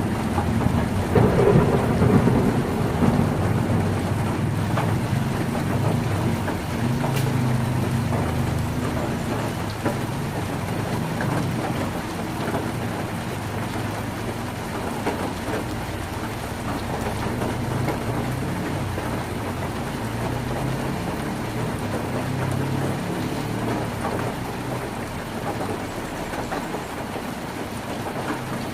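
Heavy rain falling on a tin roof, with low rolling thunder that is loudest at the start and slowly dies away.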